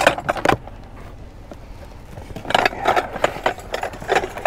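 Cardboard box flaps being pulled open and handled, scraping and rustling, with a few sharp knocks in the first half-second and louder rustling after the midpoint.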